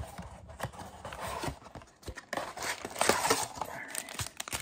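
Foil trading-card packs being pulled out of a cardboard blaster box: the wrappers rustle and crinkle, with irregular light taps and clicks.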